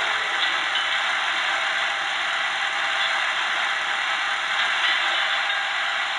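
The sound decoder of an Electrotren H0 model of a Renfe 269 electric locomotive plays a steady rattling hiss through the model's small loudspeaker while the locomotive stands still.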